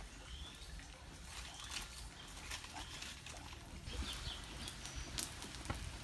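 Hand-pumped clay tube bellows puffing air into a charcoal furnace, an uneven snorting wheeze with a low rumble beneath and a few light knocks.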